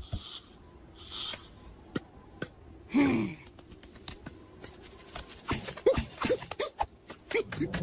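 Cartoon sound effects: a brief falling vocal noise from a character about three seconds in, then a quick run of clicks and taps mixed with short squeaks over the last few seconds.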